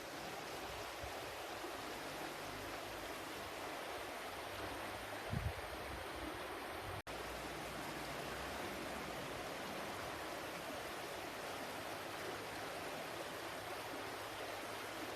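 Water flowing steadily, with a brief low thump about five seconds in and a split-second break in the sound about two seconds later.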